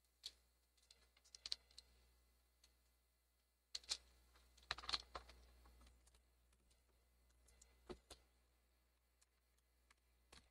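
Faint, scattered clicks and light rattles of a ThinkPad R52 laptop keyboard being handled and set into place, its keys and plastic frame clicking, with a busier cluster of clicks around four to five seconds in.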